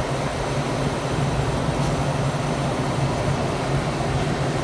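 Steady hum and whir of a commercial cooler's refrigeration fans running, with a constant low hum underneath.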